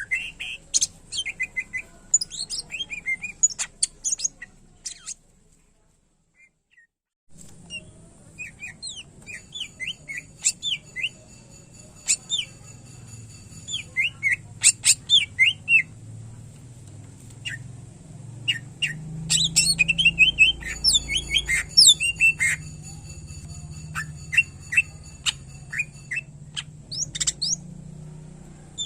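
Greater green leafbird (cucak ijo) singing a fast, varied run of sharp chirps and whistled notes, breaking off for about two seconds around five seconds in, then resuming with a steady low hum underneath.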